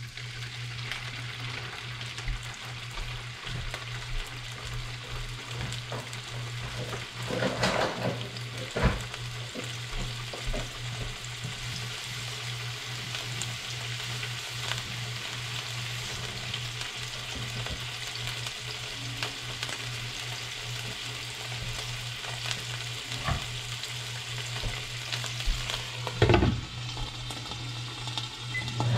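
Food sizzling steadily in a frying pan, stirred now and then, with a few sharp knocks of a utensil against the pan, one about a third of the way in and one near the end. A steady low hum runs underneath.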